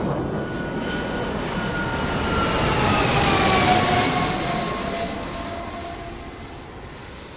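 Cessna Citation CJ4 twin-turbofan business jet flying past: a rushing engine noise with a whine that falls steadily in pitch, loudest about three to four seconds in, then fading away.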